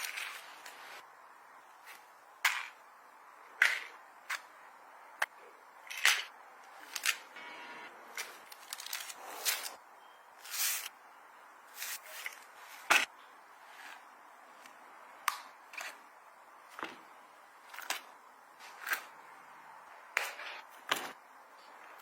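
Objects being handled and set down: a string of irregular clicks, taps and light rustles, about one every second or so.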